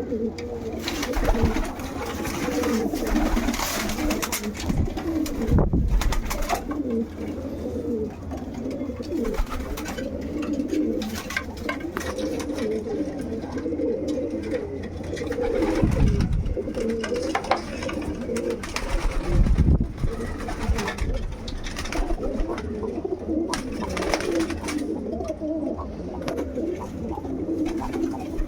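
Many domestic pigeons cooing at once in an enclosed space, with scattered clicks and a few low thumps, likely wing flaps or handling.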